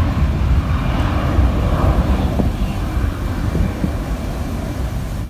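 Jet airliner's engines running on the runway: a loud, steady low noise that eases off slightly over a few seconds.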